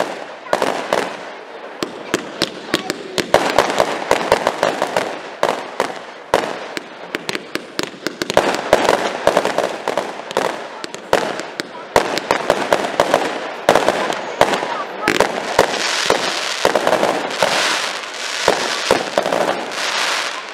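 Professional aerial fireworks display: a dense run of launches and shell bursts, sharp bangs several times a second over a continuous crackling hiss.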